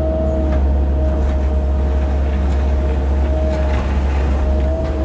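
Cat 308 mini excavator's diesel engine running steadily with a low drone, with a steady whine above it and a few light knocks as it works.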